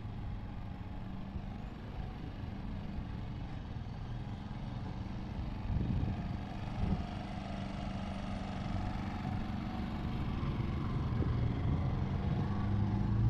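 Semi truck diesel engine idling with a steady low hum, growing louder near the end.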